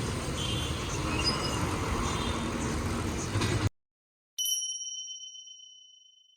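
Street traffic noise cuts off abruptly about three and a half seconds in; after a short dead silence, a single bright bell-like ding rings out and fades over about two seconds, an edited-in chime marking the cut to a new scene.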